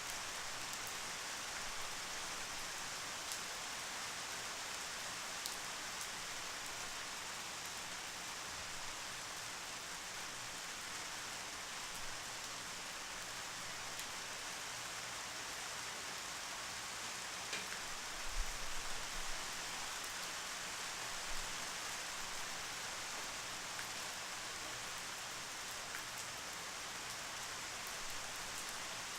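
Steady rain, an even hiss with occasional single drops ticking close by. A few soft low thumps come about two-thirds of the way through.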